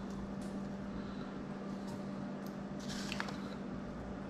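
Quiet kitchen handling: a measuring spoon of chili flakes being tipped into a sauce bowl, with faint clicks and a brief rustle about three seconds in, over a steady low hum.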